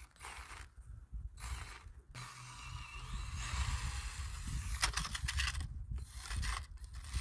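Geared drivetrain of a 1/24 Axial SCX24 crawler, a brushless motor driving through an RCAWD transmission, whirring steadily as the truck drives and climbs. The whir grows louder about two seconds in, with a few short crackles from the tyres on the ground about five seconds in.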